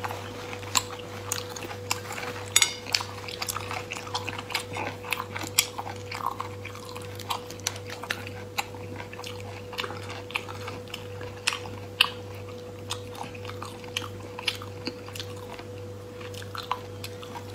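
A person chewing sea snail meat: wet chewing and mouth clicks at an irregular pace, with small smacks between bites.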